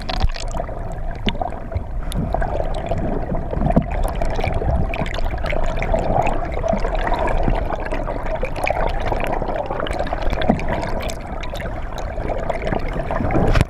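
Muffled, steady rushing and gurgling of water heard through a GoPro's waterproof housing held underwater, with scattered small clicks and knocks.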